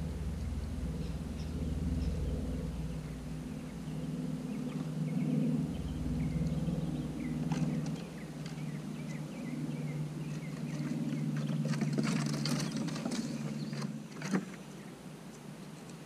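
A low, wavering motor drone with a deeper rumble under it, cutting off with a sharp knock about fourteen seconds in. Quick crunching clicks come before it stops, from an eastern gray squirrel gnawing sweet potato close to the microphone.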